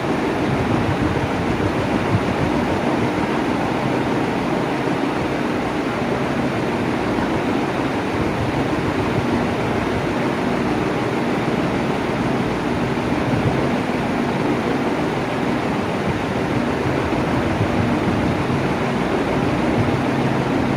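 Electric fan running steadily at constant speed: a continuous rush of moving air over a low hum.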